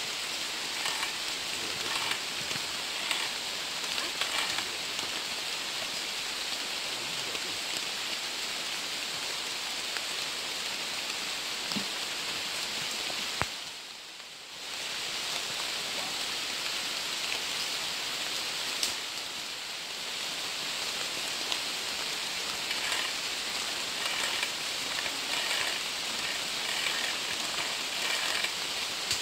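Steady rain falling: a dense, even hiss with scattered drop ticks. It drops away abruptly for about a second and a half midway, then carries on.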